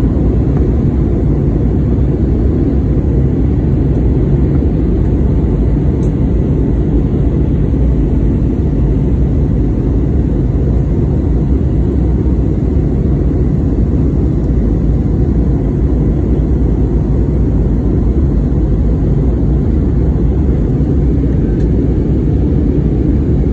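Steady, loud cabin noise of an Airbus A320neo in flight shortly after takeoff: engine and airflow rumble heard from inside the passenger cabin.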